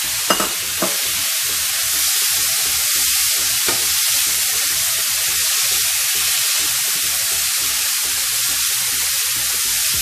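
Ground meat frying with onions and spices in a nonstick pan: a steady sizzle as a spatula stirs it, with a few sharp clicks of the spatula against the pan in the first second and once more about four seconds in.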